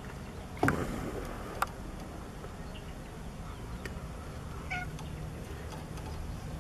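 Domestic cats in a wire enclosure: a sudden loud sound with a quickly falling pitch about half a second in, a sharp click a second later, and a short faint meow near the middle, over a steady low hum.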